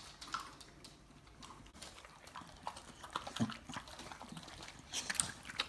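Two dogs eating a raw meal from bowls: irregular wet chomping, smacking and crunching, busier near the end.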